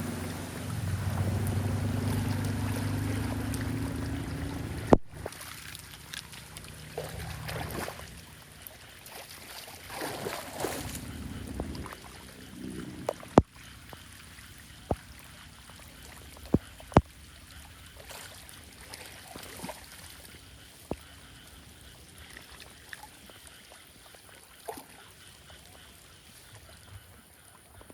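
Floodwater draining away through a street drain: a steady low rushing for the first five seconds. It changes abruptly to a quieter trickle with scattered sharp clicks.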